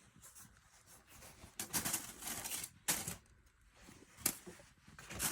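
Packaging being handled during a sneaker unboxing: short bursts of rustling and crinkling, with a couple of sharp clicks or knocks about three and four seconds in.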